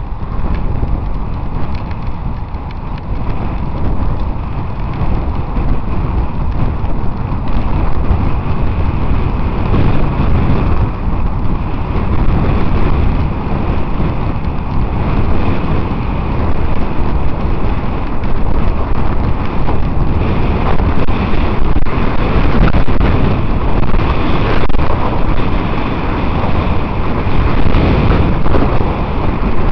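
Wind rushing over the microphone of a camera carried on a moving road bicycle: a loud, steady rush that grows louder over the first ten seconds or so as speed builds.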